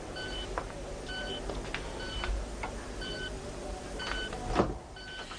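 Bedside patient monitor beeping steadily, one short beep about once a second, a heart-rate signal. A single louder thump comes about four and a half seconds in.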